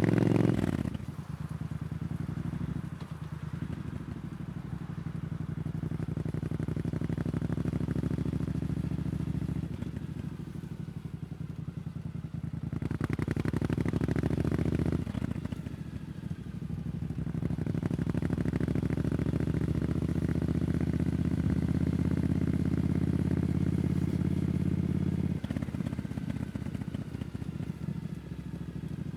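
Triumph Scrambler 900's parallel-twin engine running through an Arrow exhaust while riding. The revs climb slowly, then fall off sharply about a second in, around fifteen seconds in and again near the end, with smaller dips in between.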